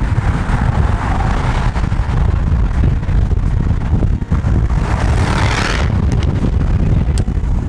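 Heavy wind buffeting on the microphone at an open car window while driving, over a steady low road and engine rumble. Two swells of rushing noise, about a second in and around five seconds in, as other cars pass.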